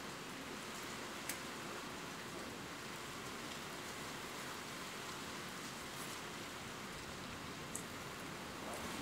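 Steady rain falling, an even hiss with a few sharp ticks of single drops now and then.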